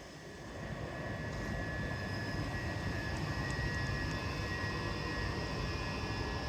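Class 377 Electrostar electric multiple unit running, a steady rumble with a constant high electric whine that grows a little louder about a second in.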